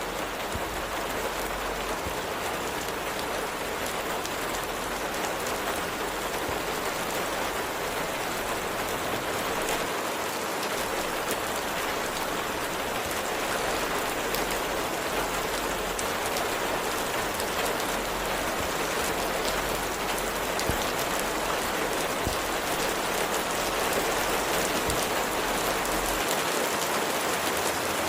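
Steady rain falling: an even hiss made up of many small drop ticks.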